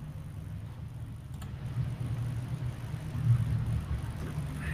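Low steady hum of background noise picked up by an open conferencing microphone, with a faint click about a second and a half in.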